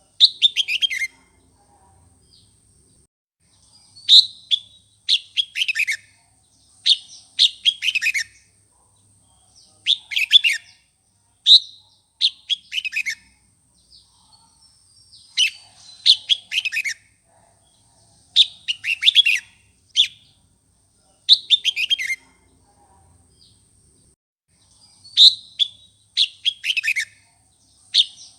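Red-whiskered bulbul singing fired-up, combative song: short bursts of quick, falling notes, one every one to three seconds, with brief pauses between. This is the kind of song used to provoke newly caught wild bulbuls into singing back.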